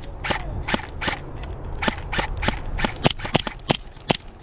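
Airsoft guns firing single shots: an irregular run of sharp pops, about three or four a second.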